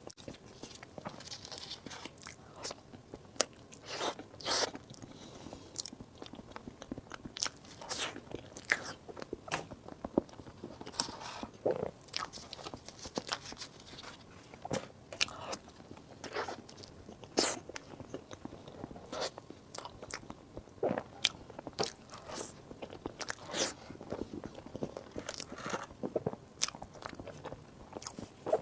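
Close-miked eating sounds: bites and chewing of desserts, with sharp irregular mouth clicks and crunches a few times a second.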